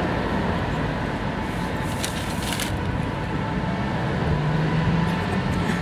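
Steady street traffic noise, with a low engine hum from a vehicle in the second half.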